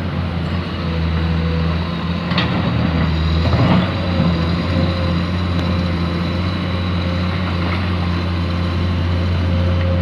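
Excavator's diesel engine running steadily with a steady whine above it, with a single sharp knock about two seconds in and a louder burst of noise a little before the fourth second.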